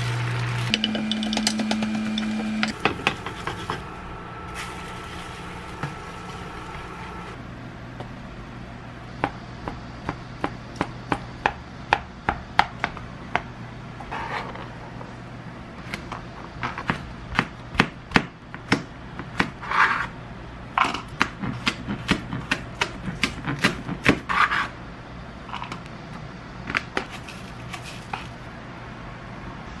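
Knife chopping a thin egg crepe into strips on a plastic cutting board: a long run of sharp taps, a few a second, from about nine seconds in until about twenty-five seconds in. A short steady hum is heard in the first few seconds.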